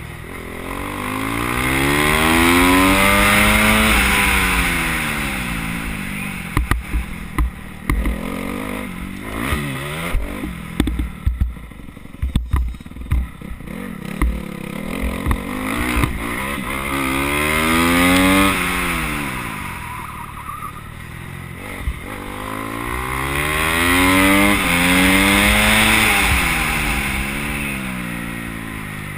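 Motorcycle engine at racing speed, revving up through the gears with short steps at each shift, then falling away as it slows into the next corner, several times over. In the middle stretch, sharp knocks and clatter from the bike jolting over rough ground break in over the engine, with wind rushing past.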